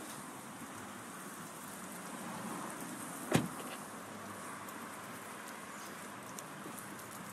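A Honda HR-V's door shut once, a single thud about three and a half seconds in, over steady background noise.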